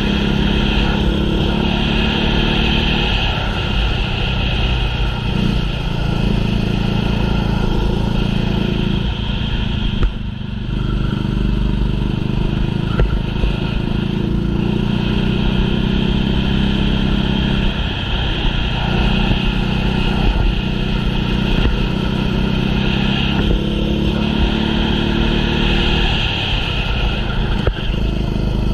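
Racing kart engine running hard through a lap, its pitch climbing on the straights and dropping as it lifts for the corners, again and again.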